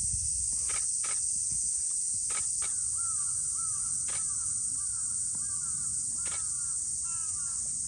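Steady high-pitched insect chorus in summer heat, with a bird calling a quick series of about eight short arching notes from about three seconds in, and a few faint clicks.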